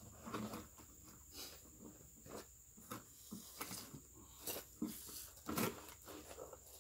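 Handling noises: clothing rustling and a string of light knocks and clicks as a shooter sits down at a table and takes hold of a rifle on its bag rests, the loudest knocks coming in the second half.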